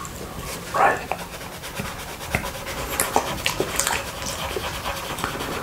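Close-miked tongue licking buckwheat honey off a glass plate, with wet mouth clicks and breaths, a louder lick about a second in.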